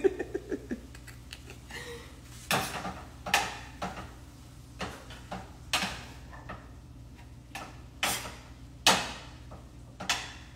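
A cooking utensil knocking and clinking against a pan on the stovetop: about ten separate strikes at irregular intervals, each with a short ringing tail.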